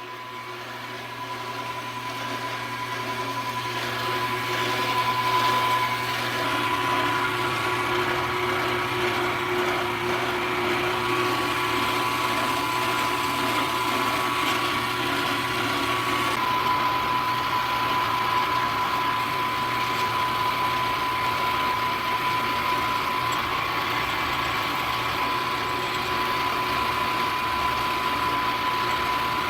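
Small milling machine running with a four-flute end mill cutting a steel spindle: a steady machine noise with a thin whine that shifts pitch slightly about halfway through. The sound swells over the first few seconds, then holds even.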